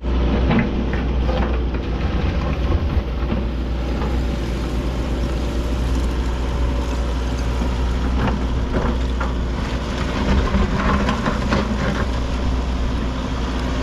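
Hitachi Zaxis 135US excavator's diesel engine running steadily, with scattered clunks and scrapes as the machine works through woody landslide debris.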